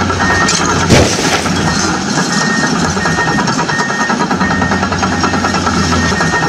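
A loud crash about a second in, as the toy dump truck tips over onto its side, over a dense steady engine-like noise with a short high beep that repeats.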